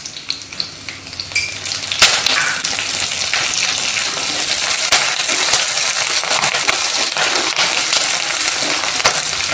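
Curry leaves hitting hot coconut oil with coconut pieces and dried red chillies. A light sizzle with a few clicks gives way, about two seconds in, to loud, steady sizzling and crackling, with a wooden spatula stirring through it.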